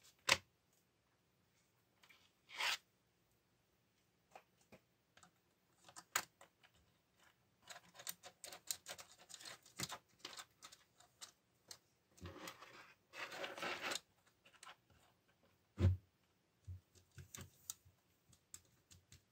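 Steel saw chain (3/8-inch pitch) being handled and fitted around a chainsaw guide bar on a wooden table: loose links clicking and rattling and dragging against the bar and tabletop. There is a sharp clack near the start, a longer scraping stretch past the middle and a dull knock a little later.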